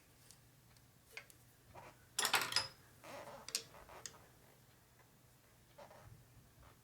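Scattered light clicks and taps of hand work on parts, with a short clatter of several clicks about two seconds in.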